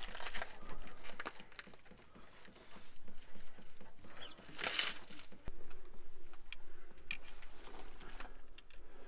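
Scattered small clicks and taps of parts and tools being handled in a car's engine bay, with a louder scraping rustle about halfway through.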